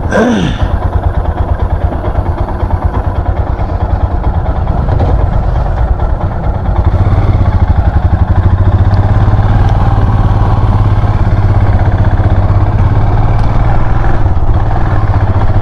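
Motorcycle engine running on the move with an even, low beat. It grows louder about five to seven seconds in as the bike gets going. A brief falling whine sounds right at the start.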